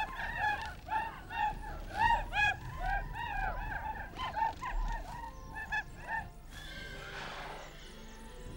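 A crowd of warriors cheering with many short, high whooping cries, each rising and falling in pitch and overlapping at about three or four a second. The cries die away about six seconds in, followed by a brief rush of noise.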